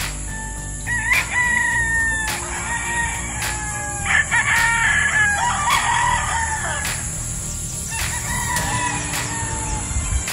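Gamefowl roosters crowing, several crows in turn: one about a second in, overlapping crows in the middle, and another near the end, over a steady high-pitched whine.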